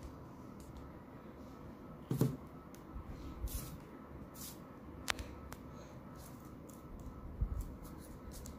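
Quiet handling sounds on a wooden table as a cut onion half is pressed onto paper to print with paint: a few soft knocks and clicks, the loudest a thump about two seconds in, a sharp click about five seconds in and another thump near the end.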